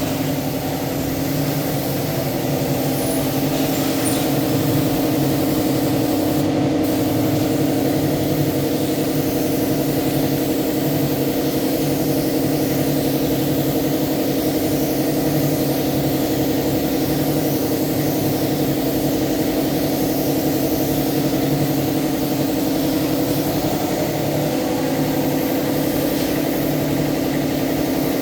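A motor-driven machine running steadily: a loud, even droning hum with a faint regular pulse.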